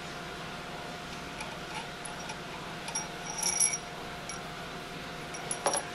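Light metallic clinks of steel support pins and bolts being unthreaded from the pump and set down on a metal workbench: a cluster about halfway through and a sharper pair near the end, over a low steady hum.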